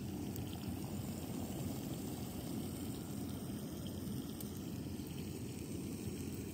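Backpacking stove on a Coleman butane-propane canister burning under a covered metal pot, with the water inside bubbling: a steady low rushing noise.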